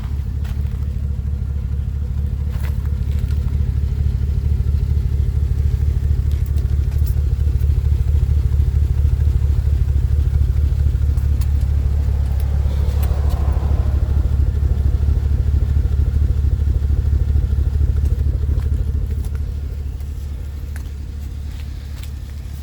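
A 2012 Camaro SS's 6.2-litre V8 idling, its exhaust giving a steady, even low pulse. It grows louder a few seconds in and eases off again near the end.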